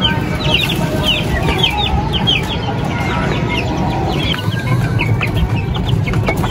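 Chicks peeping in quick, short falling notes, several a second, with hens clucking, over a low rumble of wind on the microphone.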